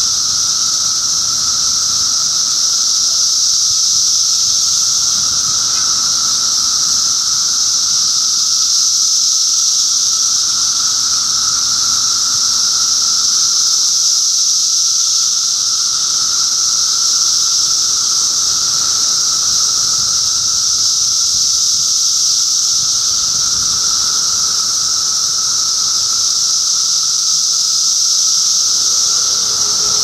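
A dense chorus of Brood II periodical cicadas singing without a break. A high, hissing buzz runs over a lower, steady droning tone.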